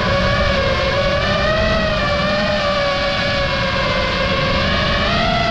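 FPV quadcopter's brushless motors and propellers whining, the pitch drifting up and down with the throttle, with wind rushing over the onboard microphone.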